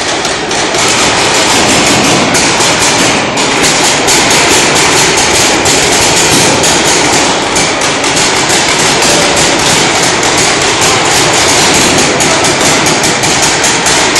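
Many paintball markers firing rapidly, with paintballs smacking against the bunkers: a dense, continuous clatter of sharp cracks echoing in a large indoor hall.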